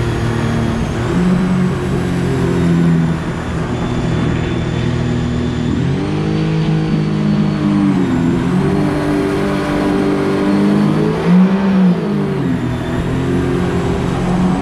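Jet-drive outboard motor pushing a boat at speed up a river. Its pitch dips and climbs back a couple of times as the throttle changes, over a steady rush of water and wind.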